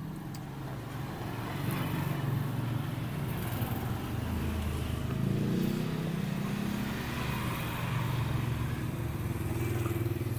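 Motor vehicles passing on a road, a low engine hum that swells and fades several times as they go by.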